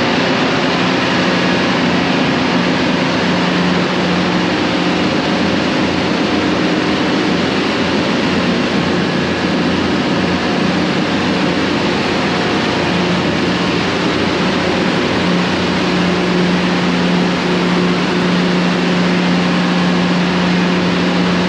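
Loud, steady engine-room noise from a ship's running auxiliary diesel engines and a diesel power pack: a dense machinery din with a steady low hum that grows stronger about two-thirds of the way through.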